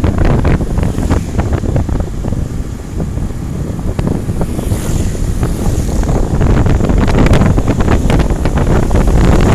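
Wind buffeting the microphone on a moving vehicle: a loud, gusty rumble with road and vehicle noise underneath.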